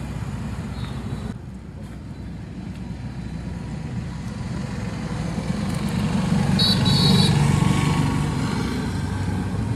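Street traffic rumbling steadily, swelling as a motor vehicle passes close about seven seconds in, with a brief high-pitched tone at its loudest point.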